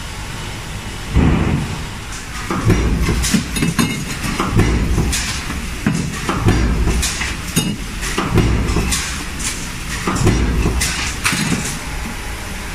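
Stamping-press room noise: repeated heavy thuds and sharp metallic clanks of presses stamping steel strip, spaced irregularly about every half second to a second, over a steady machinery din.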